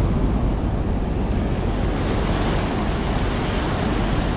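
Ocean surf washing in around the feet in shallow water: a steady rush of foaming wash.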